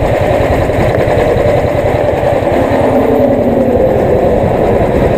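Motorcycle engine idling steadily, a fast, even low-pitched chugging.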